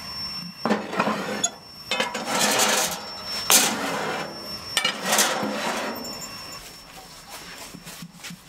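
Round metal pie pans scraping and clanking against the racks and each other as they are slid into and shifted in a metal oven. There are several scrapes and knocks, the sharpest about three and a half seconds in, then quieter rubbing.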